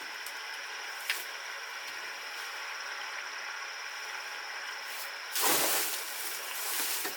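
A loud burst of hissing noise about five and a half seconds in, lasting about a second, with a weaker hiss near the end, over a steady high-pitched background tone.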